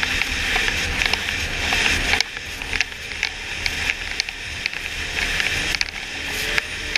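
Snowmobile riding along a trail: steady engine and track noise with frequent sharp clicks and rattles. It eases off about two seconds in and builds again toward the end.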